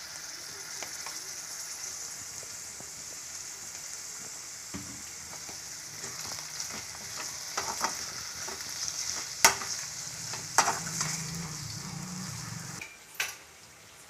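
Prawns sizzling as they fry in hot oil and masala in a metal kadai, stirred with a steel ladle that scrapes and clinks against the pan a few times in the second half. The sizzle drops off near the end.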